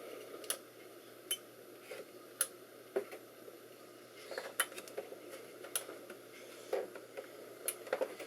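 Light clicks and taps, about a dozen at irregular intervals, from hands working on a desktop computer during an attempt to power it on. A faint steady low hum runs underneath.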